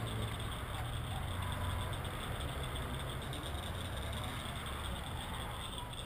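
Steady low mechanical drone with a faint hiss over it.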